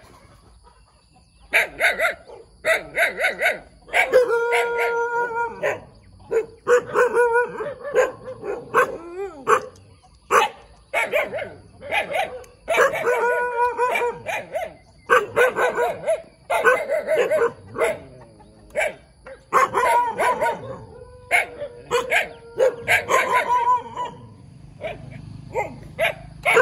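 A puppy and dogs barking over and over in quick clusters of short barks, some of them held longer as drawn-out yelps.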